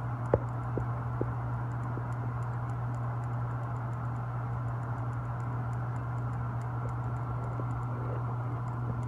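A steady low mechanical drone, with a few sharp clicks in the first second and a half.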